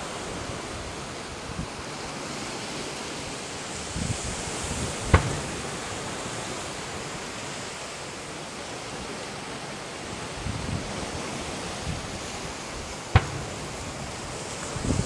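Two sharp fireworks bangs, about eight seconds apart, over a steady hiss of wind on the microphone.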